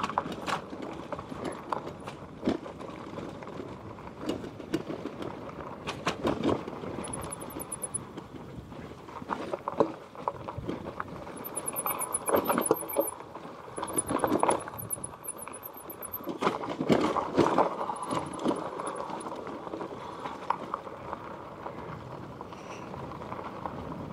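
Heavily loaded Magicycle step-through e-bike rattling and knocking over a rough dirt two-track: irregular jolts and clatter over a steady rushing of tyres and air. A faint, high, rapid ticking comes and goes several times.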